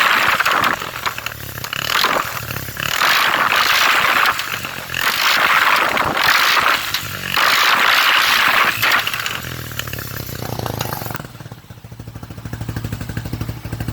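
Apache quad bike's engine revved in repeated throttle blips, each surge lasting about a second. About eleven seconds in it drops back to an even idle.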